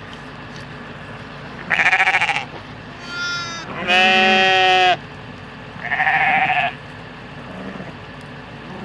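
Four bleats from a farm animal in a birthing pen. The third is the loudest and lasts about a second, and the second is fainter and higher.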